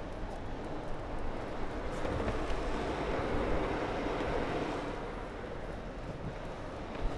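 Longboard wheels rolling over tarmac and then paving slabs, under the steady running of a double-decker bus moving alongside, swelling a little in the middle.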